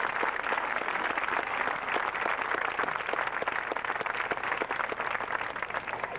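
Crowd in the stadium stands applauding: dense clapping that falls away at the very end.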